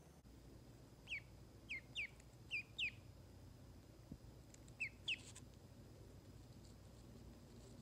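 Duckling peeping softly: short, high peeps that drop in pitch, five in quick succession and then two more a couple of seconds later.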